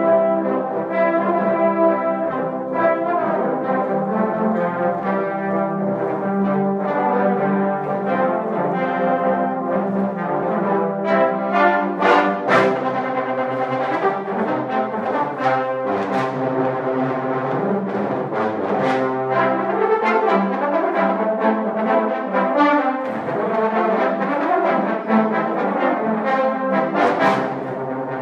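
A large trombone choir playing a multi-part arrangement in harmony: full held brass chords over a sustained low note, with a few sharp accented attacks.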